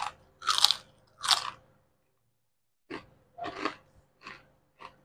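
A crisp deep-fried kuih kicap (wheat-flour and chive fritter) being bitten and chewed right by a clip-on microphone. There are three loud crunches in the first second and a half, a pause, then a run of softer chewing crunches.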